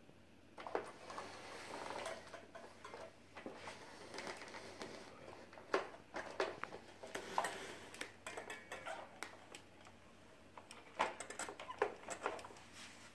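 Plastic clicks and knocks from a toy dump truck being handled and pushed about on a rug, with soft rustling between the knocks.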